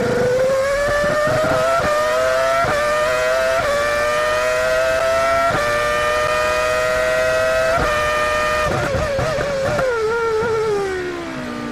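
Minardi Formula One car's Asiatech V10 at full throttle, heard onboard: a high-revving wail that climbs in pitch through five quick upshifts, each a sudden drop then a fresh climb. Near the end the revs fall away as the car lifts off and downshifts.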